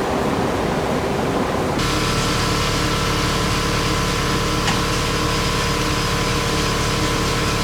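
A power tool's motor running at a steady speed, with a constant whine over its rushing noise. A rougher, uneven noise gives way to it about two seconds in.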